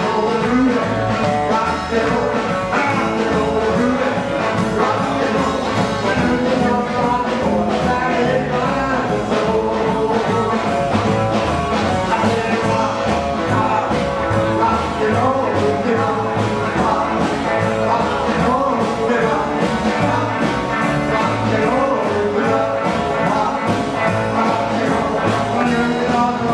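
Rockabilly band playing live: a steady rock-and-roll beat with a bass line stepping from note to note, with no vocal line.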